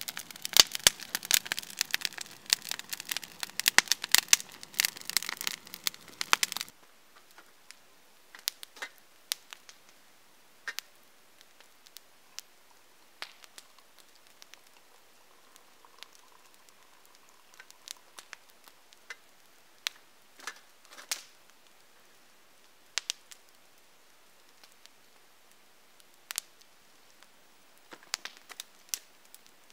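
Wood campfire crackling densely with many sharp pops and snaps, then abruptly thinning about seven seconds in to scattered single pops over a quiet background.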